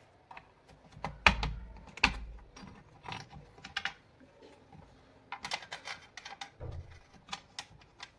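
Irregular clicks and taps from an electric iron's plastic handle and metal body being handled during reassembly, with two louder knocks about a second and two seconds in.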